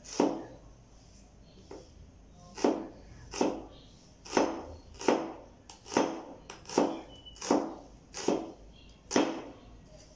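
Cleaver chopping on a cutting board: about a dozen chops, roughly one every three-quarters of a second, each a sharp knock with a short ring.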